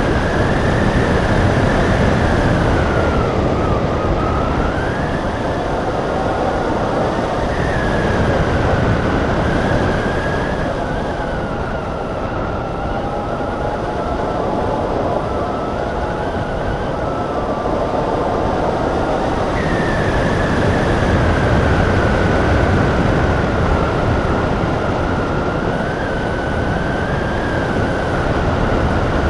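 Airflow rushing over a hang glider in flight, buffeting the wing-mounted microphone, with a high whistle that slowly rises and falls in pitch.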